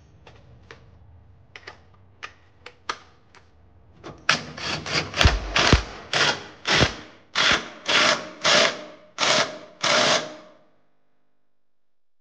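Hand ratchet tightening a bolt down: a few single clicks, then about a dozen quick strokes of ratchet clicking at roughly two a second, stopping about ten and a half seconds in.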